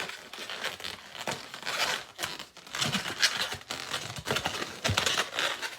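Latex modelling balloon being handled by hand, pulled off the pump nozzle and worked for tying: irregular rubbing and crinkling of the rubber.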